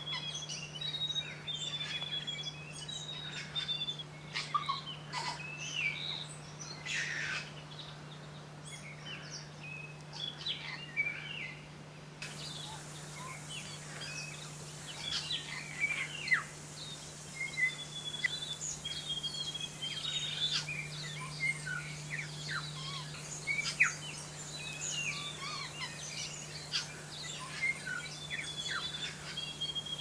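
New Zealand falcon chick begging while being fed: many short high chirps and squeaks throughout, with runs of quick, evenly spaced notes at one pitch near the start, in the middle and near the end.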